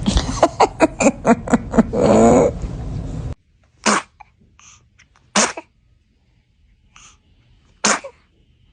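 A baby sneezing: a rapid string of short sharp bursts in the first two seconds, then a brief voiced sound. After the background noise drops suddenly, three single sneezes follow, about one and a half to two and a half seconds apart.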